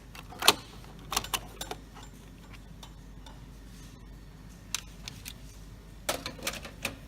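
Scattered sharp plastic clicks and knocks as the note acceptor's plastic cover plate is unlatched, lifted off and handled. The loudest click comes about half a second in, and a quick cluster of clicks comes near the end.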